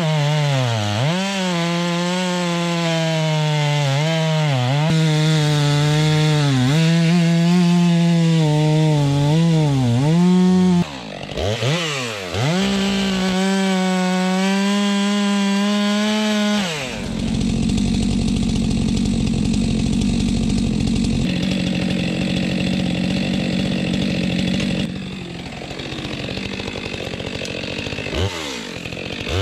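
Stihl chainsaw cutting through a log at full throttle, its engine pitch dipping under load and picking back up again and again. About 17 seconds in it drops back to a low, rough idle, with a brief rev near the end.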